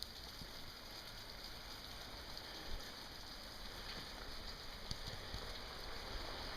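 Faint, steady patter of light rain, with a couple of soft taps.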